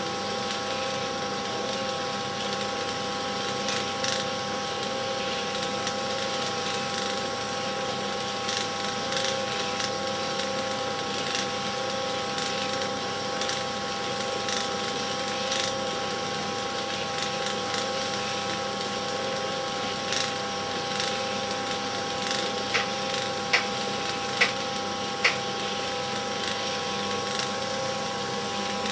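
Cine film projector running: a steady motor hum with several constant whining tones under a fast, irregular mechanical clatter from the film mechanism. Four sharper clicks come roughly a second apart near the end.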